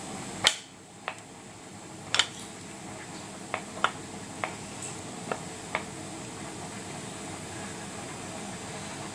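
A metal puttu tube knocking and clicking lightly against a ceramic plate as the steamed puttu is pushed out of it: about eight short, irregular taps, the first and loudest about half a second in, over a steady background hiss.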